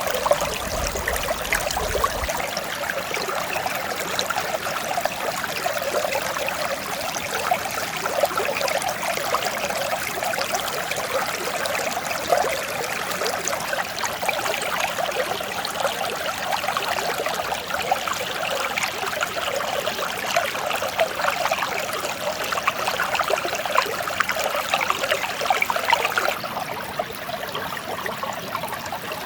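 Mountain stream flowing with a steady, gentle babble of running water.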